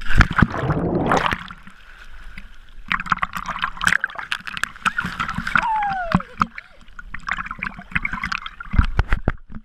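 A person plunging into river water: a loud splash in the first second or so, then muffled underwater bubbling and rushing with crackling, heard from below the surface. Near the end come splashes as the swimmer breaks the surface.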